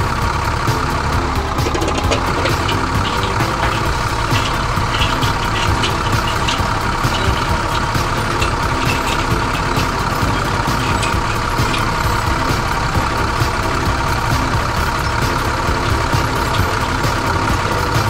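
Tractor engine sound effect running steadily, with rapid ticking over it throughout.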